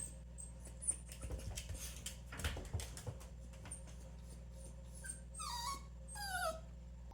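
Mame-shiba dog whining: a few faint short squeaks, then two louder high whines near the end that slide down in pitch. A steady low hum runs underneath.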